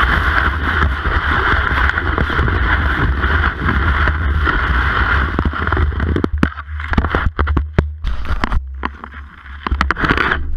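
Classic cross-country ski gliding in the track, heard through a camera mounted on the ski: a steady scraping hiss over a low rumble. About six seconds in the hiss drops away and a string of sharp clicks and knocks follows.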